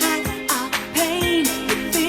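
Pop song with a sung vocal over a steady drum beat, about two beats a second.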